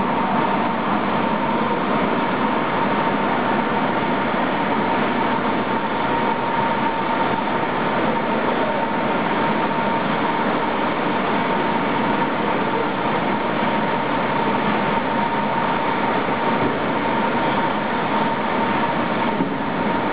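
PE foam sheet extrusion line running: a steady, loud mechanical din with a constant high whine held at one pitch.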